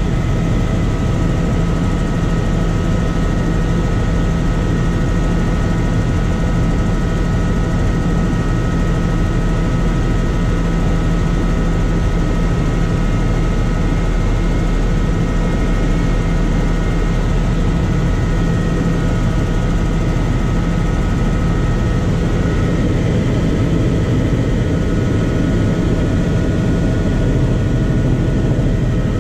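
Helicopter in flight heard from inside the cabin: a loud, steady low rotor drone with several steady whining tones above it.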